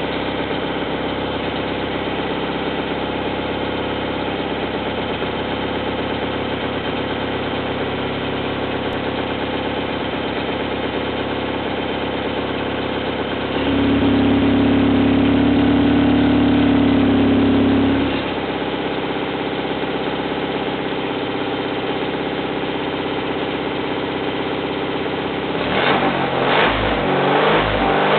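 Car engine idling steadily through its exhaust silencer. About halfway in, its speed is held higher for about four seconds, then drops back to idle, and near the end it is revved several times.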